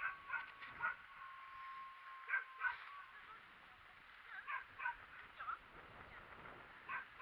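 Faint short animal calls, mostly in pairs, repeating every second or two. A thin steady whine stops a little over two seconds in.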